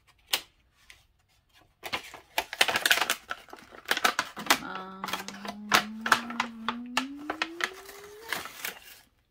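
Stiff clear plastic blister packaging crackling and clicking in quick irregular bursts as a doll dress is worked out from behind it. Partway through, a drawn-out hummed tone rises in pitch.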